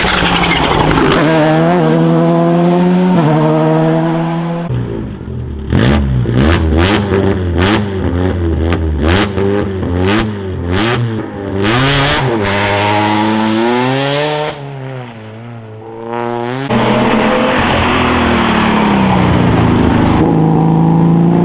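Rally car engines at full throttle with gear changes. From about six seconds in, a car revving at a standstill lets off a rapid string of sharp exhaust bangs, then its engine is blipped up and down several times. Near the end another car's engine runs hard through a bend.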